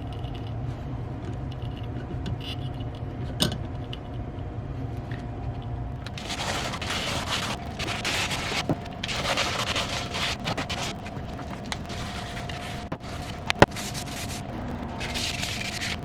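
Scraping noises in two stretches, with a couple of sharp clicks, over a steady low hum.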